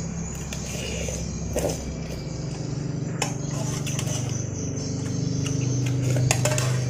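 A metal spoon clinks and scrapes a few times in an aluminium pot of soup while someone eats. A steady low droning hum runs underneath.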